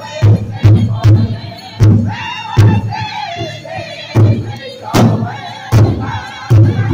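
Large powwow drum struck in unison by a group of singers with padded drumsticks, about two and a half strokes a second, under loud group singing. About two seconds in the beat thins to a few spaced strokes while the singing carries on, then strikes pick up again near the end.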